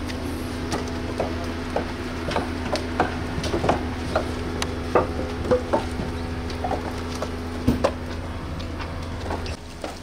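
Split firewood logs clunking and knocking against one another, in irregular wooden knocks a few times a second, as they are unloaded and stacked by hand. A steady low hum runs underneath and drops away near the end.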